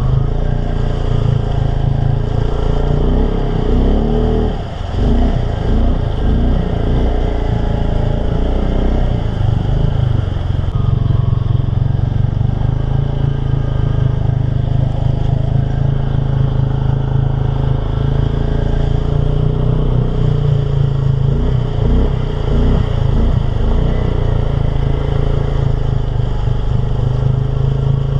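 Mud-bog truck engine running loud and steady, with the revs swinging up and down about four seconds in and again past twenty seconds.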